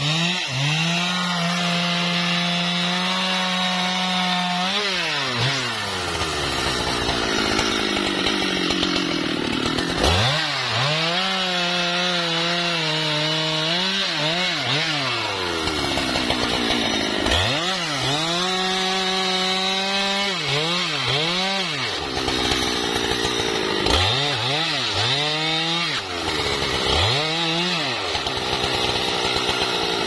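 Husqvarna 395 XP two-stroke chainsaw cutting through a trembesi log: the engine climbs to full throttle and holds while the chain is in the wood, drops back to idle, then opens up again, three long cuts in all, followed by a few short throttle blips near the end.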